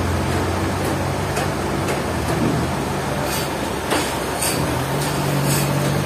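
Toyota 3.5-ton forklift's engine running as it drives, its note stepping up about five seconds in, with a few light clanks.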